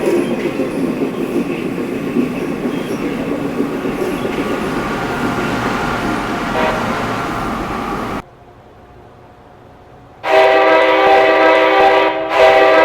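Passing Amtrak train: wheel-and-rail noise, then a sudden drop to quiet about eight seconds in. About two seconds later the locomotive's air horn sounds a loud, steady multi-note chord, with a short break near the end.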